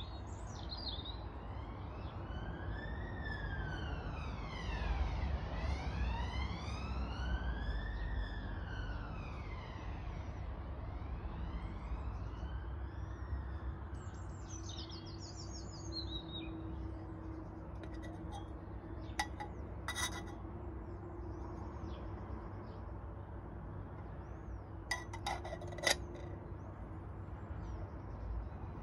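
An emergency-vehicle siren wailing, its pitch slowly rising and falling several times before fading out about halfway through. Birds chirp briefly after it, and two short bursts of sharp clinks come in the second half.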